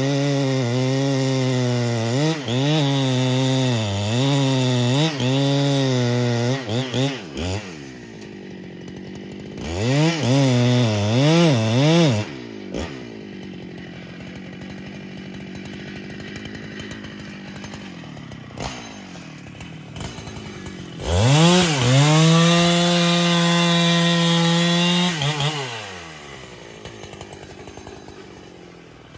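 Two-stroke chainsaw with a long bar cutting through a thick tree trunk at full throttle, the revs dipping and recovering under load for about seven seconds. It then drops to idle, is blipped briefly, idles again, and near the end is revved high and held steady for about four seconds before falling back to idle.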